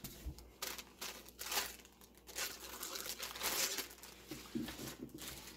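Clear plastic bag crinkling and rustling in irregular bursts as a pair of binoculars is pulled out of it and the wrapping is handled, busiest in the middle.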